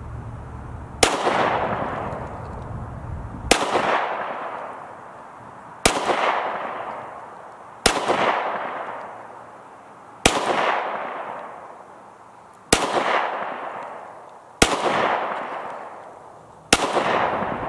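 Glock 48 9mm pistol firing Blazer aluminum-cased rounds: eight single shots in slow, deliberate fire, about two to two and a half seconds apart. Each shot is followed by an echo that fades over about two seconds.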